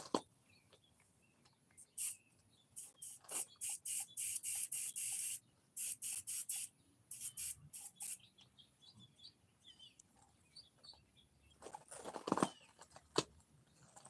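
Spray gun spraying gelcoat onto a boat hull in a run of short hissing bursts, one a little longer, with a few more bursts near the end.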